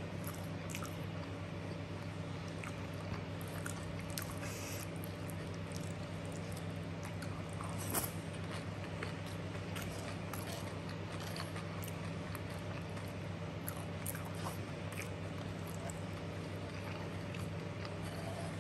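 Close-up chewing and wet mouth sounds of someone eating chicken satay and rice, with small scattered clicks and smacks over a steady low hum. One sharper click comes about 8 seconds in.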